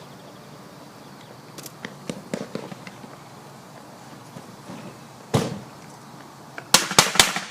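AK-47 rifle shots: one sharp shot, then about a second and a half later three rapid shots in quick succession, the loudest sounds here. Fainter clicks and knocks come earlier.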